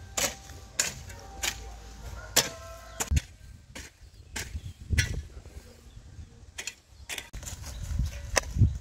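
Metal hoe blade chopping and scraping dry soil in repeated irregular strokes, with sharp hits about once or twice a second. Some hits carry a brief metallic ring, and a few land as dull thuds.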